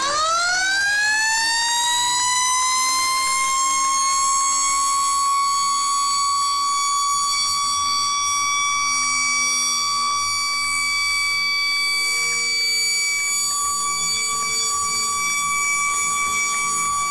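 Fire siren winding up from a low pitch to a high steady tone within about two seconds, then holding that tone. A second, fainter siren glides down and up about two seconds in.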